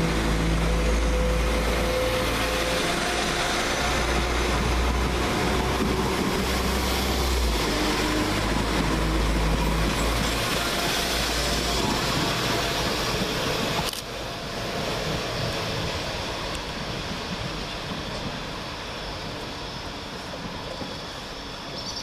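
Two coupled Class 172 Turbostar diesel multiple units pulling out at low speed, their underfloor diesel engines running with a low, steady drone over wheel and rail noise. The sound fades as the train draws away, after a single sharp click about 14 seconds in.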